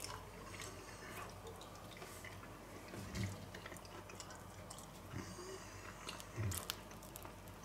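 Faint chewing of a mouthful of pizza, with small mouth clicks and two soft thumps, one about three seconds in and one near the end.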